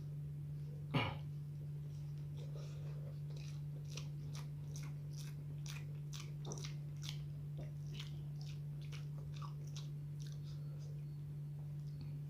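Close-miked wet chewing and mouth sounds of a person eating chilli eggplant balado and omelette, a run of short smacking ticks. There is one sharp click about a second in, over a steady low hum.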